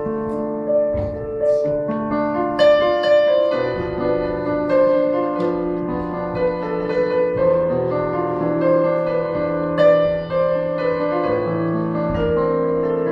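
Keyboard playing slow, sustained piano chords that change about every second.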